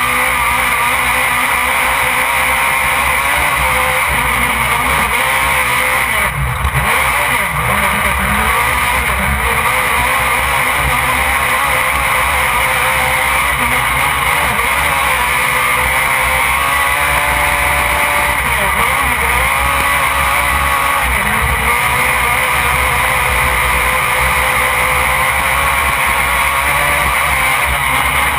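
Off-road race vehicle's engine running hard, heard from inside the cockpit. The pitch drops and climbs again several times as the driver lifts off and gets back on the throttle, over constant road and wind noise.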